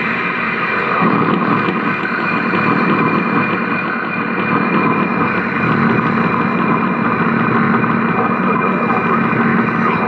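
Loud, continuous harsh noise from effects pedals played through a guitar amplifier: a dense rumbling wash with several held tones, and a lower drone that thickens about six seconds in.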